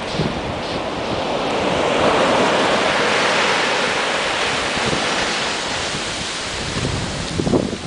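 Surf breaking and washing up a sand beach, swelling to its loudest about two seconds in, with wind buffeting the microphone near the end.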